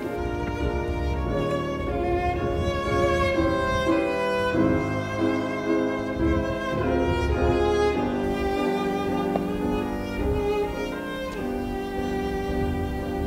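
Background music of bowed strings led by a violin, playing sustained notes that change every second or two.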